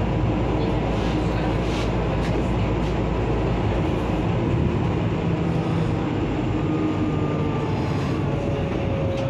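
Regional passenger train running on the rails, heard from inside: a steady rumble and rail noise with faint whining tones. The deepest part of the rumble drops away about four seconds in, and a new steady tone comes in near the end.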